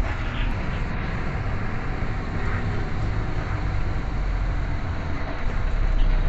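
Coach bus engine and road noise heard inside the passenger cabin while the bus is moving: a steady low rumble.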